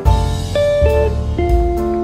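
Background music: a guitar melody over a bass line, the notes changing every half second or so.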